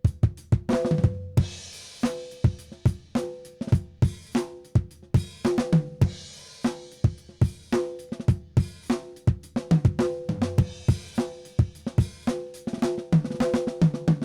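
Restored Made-in-Japan Black Jack drum kit played: bass drum, a Gretsch Brooklyn 12x6 chrome-over-steel snare, ringing toms and hi-hat, with cymbal crashes about a second and a half in and again around six seconds. It ends in a busier run of tom strokes.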